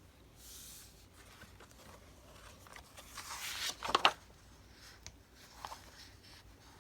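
Paper being handled during journal crafting: rustling and sliding, which swells about three seconds in and ends in a few sharp clicks, the loudest sounds here, with a smaller click later.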